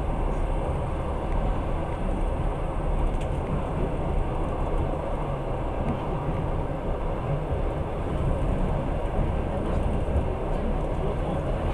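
Passenger train running at speed, a steady low rumble of wheels and carriage heard from inside the coach.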